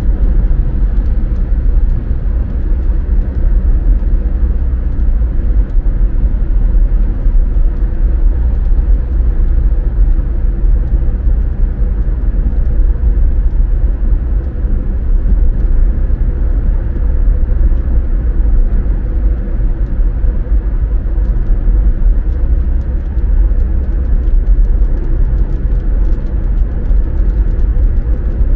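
A car being driven at a steady pace: a continuous low rumble of driving noise that holds even throughout, with no sudden sounds.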